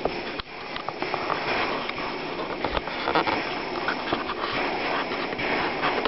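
Homemade pressurised petrol stove with a Shmel-2 burner bell, burning with a steady hiss broken by irregular crackles and pops from its flickering yellow flame.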